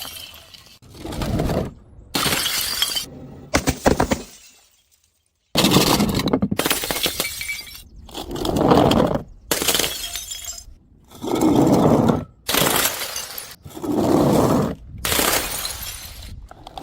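Glass bottles smashing in a quick string of separate breaks, each with a burst of shattering glass and many cut off abruptly. There is a short silent gap about five seconds in.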